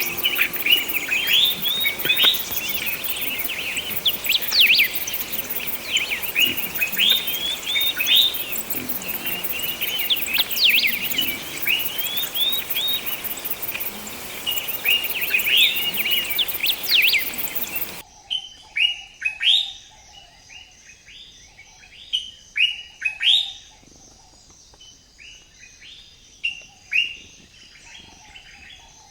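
Small birds chirping, many quick short chirps overlapping. About two-thirds of the way through, the sound cuts abruptly to a quieter stretch with fewer, more separate chirps.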